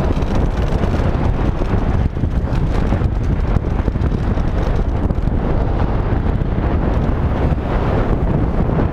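Wind buffeting the camera microphone on a downhill mountain bike run: a loud, steady rush, heaviest in the low end, with no let-up.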